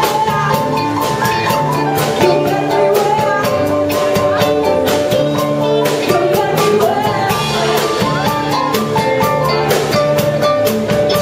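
A live band playing: a drum kit with frequent cymbal hits, an electric keyboard and electric guitar and bass under a woman singing.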